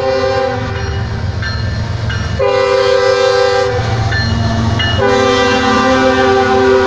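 Freight diesel locomotive's multi-note air horn sounding in blasts as the train approaches: one blast ends just after the start, a long one comes about two and a half seconds in, a brief one near four and a half seconds, and a long one from five seconds on. Underneath, the locomotives' engines rumble and the wheels clack on the rails.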